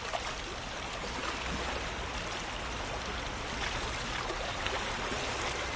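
Steady running water, like a trickling stream, with small splashes scattered through it.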